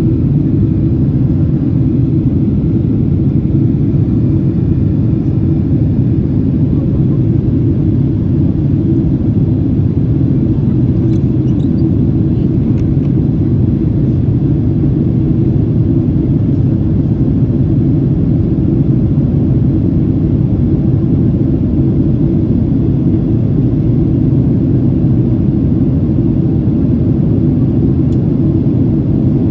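Steady low rumble of a Boeing 767-300ER in flight, engine and airflow noise heard inside the cabin from a window seat over the wing.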